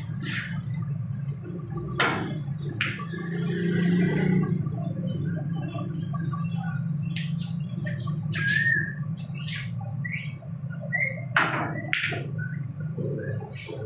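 Snooker balls clicking as a shot is played, once about 2 seconds in and again near the end, over a steady low hum. Short bird chirps sound through the second half.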